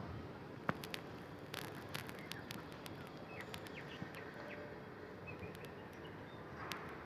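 Faint steady outdoor background noise with scattered sharp clicks and a few short bird chirps in the middle.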